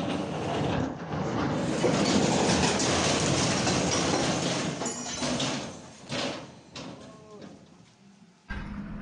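A JCB tracked excavator tipping off a flatbed truck and crashing down beside the road: a long, loud crashing rumble for about five seconds that then dies away. Near the end a steady engine hum cuts in.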